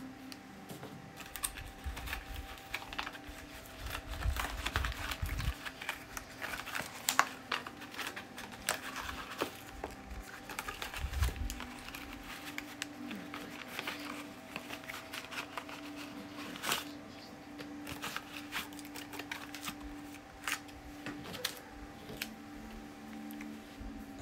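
A phone case's cardboard and plastic packaging being pried open and handled by hand on a table: irregular clicks, taps and crinkles with a few dull thumps, over a faint steady hum.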